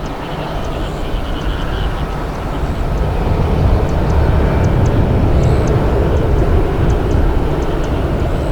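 Jet aircraft engine noise: a loud, steady, deep rush with no clear pitch, swelling a little about four seconds in.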